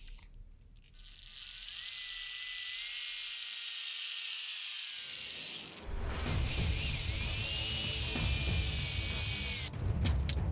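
A small power tool running with a steady high whine for a few seconds, stopping briefly, then running again with a gliding whine, over background music.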